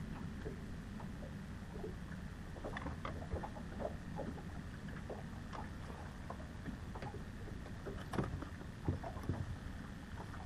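Small waves lapping and slapping against a fishing boat's hull, a steady low wash with scattered light irregular knocks and ticks; two louder knocks come about eight and nine seconds in.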